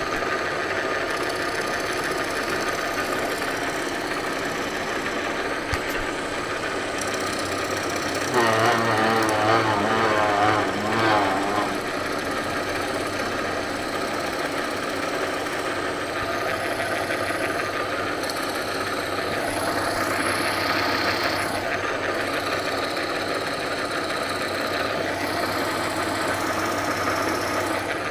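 A power tool cutting a small slot in a piece of wood: a steady machine run with a rhythmic chatter. About eight seconds in, a louder, wavering whine rises for some three seconds and then drops back.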